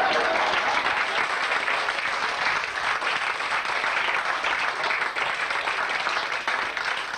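Audience applauding: dense, steady clapping from a room full of people, easing off right at the end.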